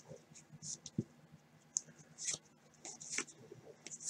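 Baseball cards being flipped and slid one behind another in gloved hands: a string of short, soft swishes of card against card, with a small tap about a second in.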